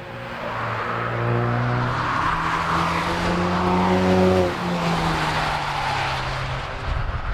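Ford Focus RS test prototype's engine running hard under acceleration as the car passes, its note holding and climbing slowly. The sound changes abruptly a couple of times, about four and a half seconds in and again near the end.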